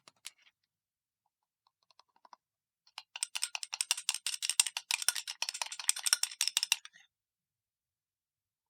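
Packaging being handled and opened: a couple of sharp clicks at the start, then a dense run of rapid crackling clicks starting about three seconds in and lasting about four seconds.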